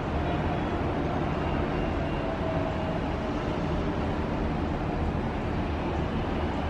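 Steady rumble and hiss of distant road traffic, without a break.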